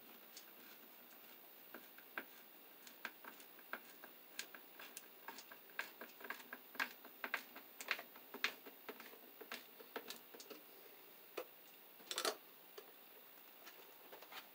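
Screwdriver turning the mounting screws of a light switch in an electrical box: a faint, irregular run of small clicks and ticks, several a second, with a short louder clatter near the end.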